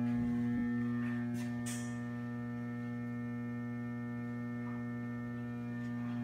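Steady electrical mains hum from the energized alternator test stand, a deep buzz with many overtones, its drive motor not yet running. A couple of faint clicks about a second and a half in.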